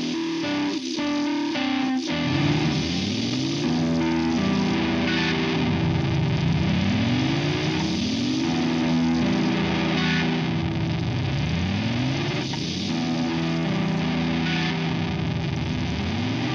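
Electric guitar played through a PT2399 delay-chip fuzz pedal, a square-wave fuzz with echo. A couple of plucked notes come first; from about two seconds in, a sustained fuzzed tone repeatedly swoops upward in pitch, about once every two seconds.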